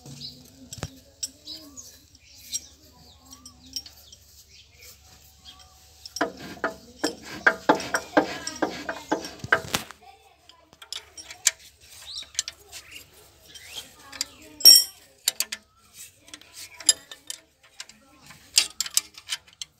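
Metal tools and parts clicking and clinking against the crown wheel and differential housing of a tractor rear axle as they are worked by hand. The taps are irregular, with one louder metallic clink about two-thirds of the way through.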